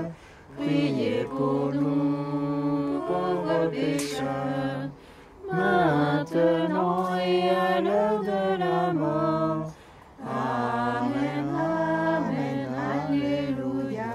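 A small group of voices singing a hymn a cappella, in three long phrases with short breaths about five and ten seconds in.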